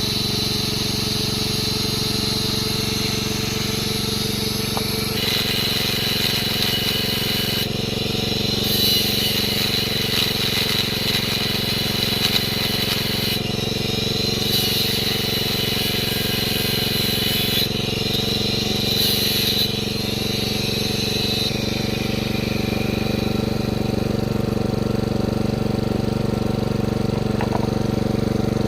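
Angle grinder running steadily with a high whine, and a harsh hiss that comes and goes in four or five stretches of a few seconds each as the disc bites into metal.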